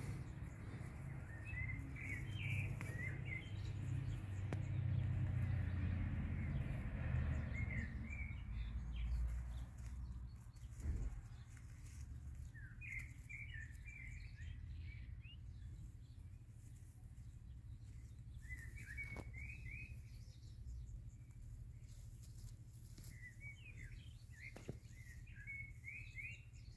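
Birds chirping in short clusters of quick high notes every few seconds, over a low rumble that eases after about ten seconds.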